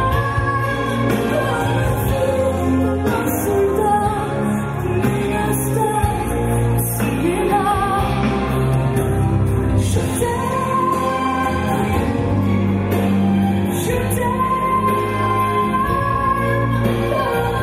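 A song with a singing voice over a steady, sustained backing, with long held notes that waver in pitch.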